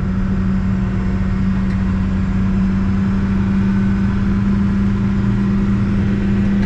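Backhoe engine running at a steady speed: a constant low hum with no change in pitch, heard from inside the cab.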